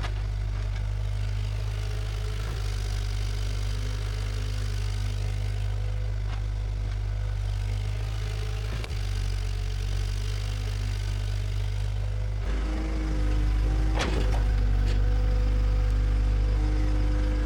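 Bulldozer's diesel engine running steadily, its level and pitch rising about two-thirds of the way through as it works harder, with a single sharp clank near the end.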